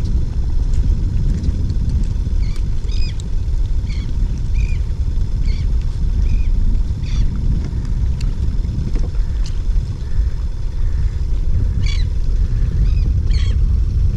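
Wind rumbling on the microphone as a loud, gusty low noise, with short high bird calls repeating every second or so.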